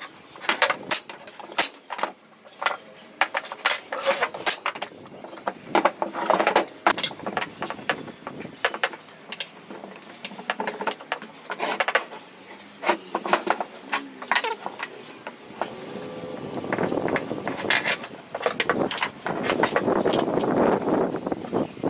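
Woodworking handling sounds: irregular knocks and clicks of wood and tools being moved and set down, then a rasping scrape over the last few seconds.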